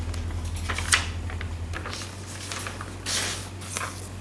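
Paper instruction booklet rustling as its pages are handled and the booklet is turned over, with a sharp crinkle about a second in and a louder rustle about three seconds in. A low hum fades out about two seconds in.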